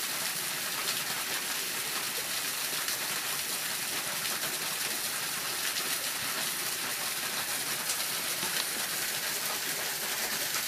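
Water running and splashing down a partly frozen waterfall hung with icicles: a steady, even hiss of falling water flecked with small drips and splashes.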